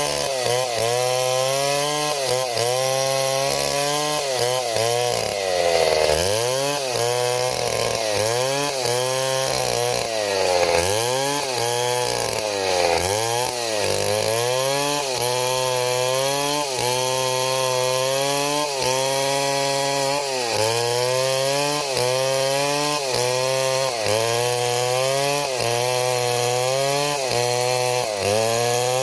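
Two-stroke chainsaw cutting into wood. The engine pitch sags as the chain bites and recovers as it eases off, over and over, about once a second.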